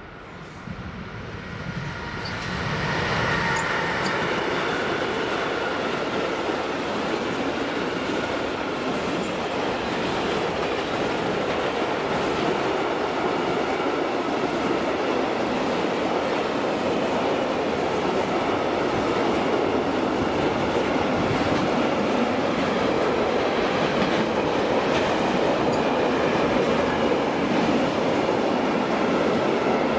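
A train comes in and passes close by. The noise of its wheels on the rails builds over the first three seconds, then holds at a steady level for the rest of the pass.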